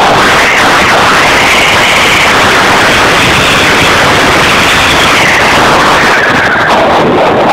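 Loud, steady wind rushing over the microphone of a camera carried by a fast-moving skier, with the hiss of skis sliding on snow that swells and fades.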